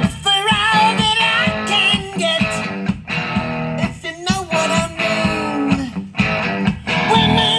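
Recorded guitar-led music with a singing voice played back loud through an Electro-Voice ELX115 15-inch passive PA loudspeaker during a sound test.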